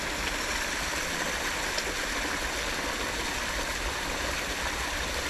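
Steady rushing of flowing water, an even hiss with a low rumble underneath.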